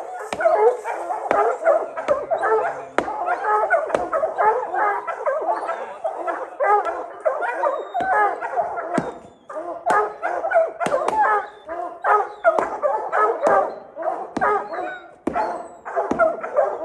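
A pack of hunting hounds barking and baying at a treed mountain lion, many voices overlapping without a break.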